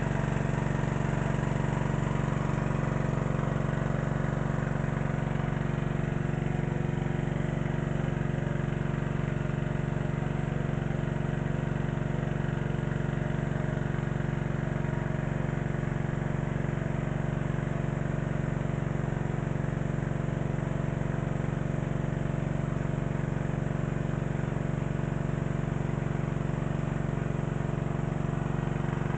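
Small engine of an irrigation water pump running steadily at constant speed, drawing water from a river.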